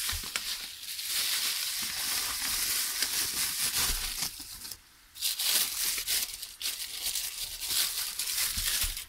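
Bubble wrap and plastic packaging crinkling and rustling as hands handle them, with a brief pause about five seconds in.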